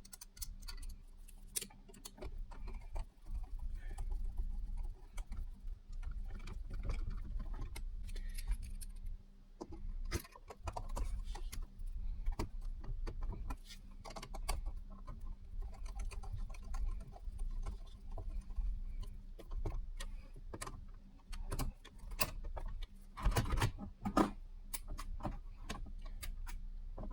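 Scattered small clicks, taps and metallic rattles of door-lock hardware being handled and fitted, over a low, steady hum.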